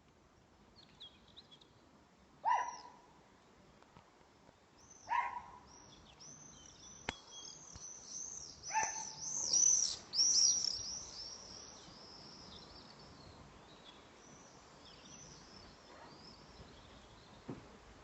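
Birds calling: three short, louder calls a few seconds apart, and in the middle a run of rapid, high twittering chirps that fades out, over faint outdoor background noise.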